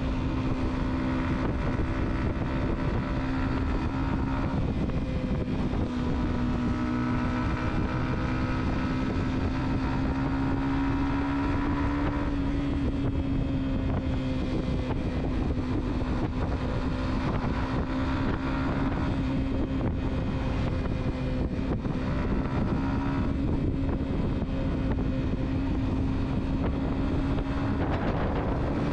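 A car driving at steady speed: a steady engine hum that drifts slightly up and down in pitch, over road and wind noise.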